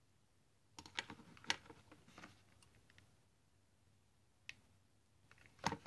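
Faint clicks and taps of hands handling craft materials: a ribbon, a metal jump ring and a hot glue gun on a cutting mat. A cluster of clicks about a second in, a single click past the middle, and a louder few near the end.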